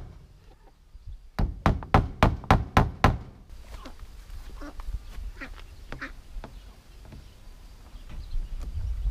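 A hammer driving a small cable-clip tack into the pine boards of a hutch wall: a quick run of about eight taps. After that, ducks quack faintly and on and off.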